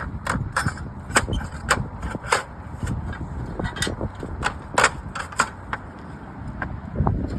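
Irregular sharp taps and clicks from slate roof repair work, a few a second, over a low steady rumble.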